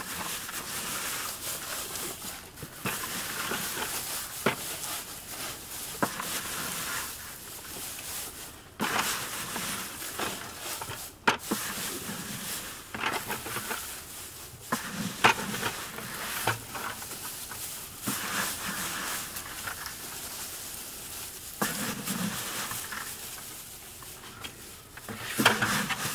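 Dry straw and shredded paper rustling as gloved hands toss and mix them into a compost pile, in irregular bursts with a few sharp snaps.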